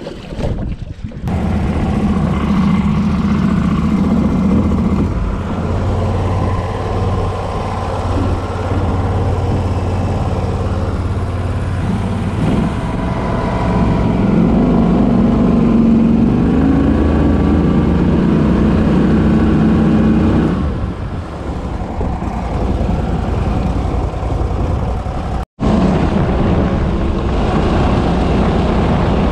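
Mud Buddy Mini 23 hp surface-drive mud motor running with the boat under way, its pitch rising and falling as the throttle changes. The engine sound drops briefly about 20 seconds in and cuts out for an instant a few seconds later.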